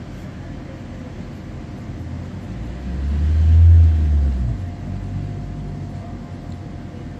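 Inside a Tatra T4D tram standing still: a steady low rumble with a faint steady whine. A deep hum swells up loudly about three seconds in and dies away a second or so later.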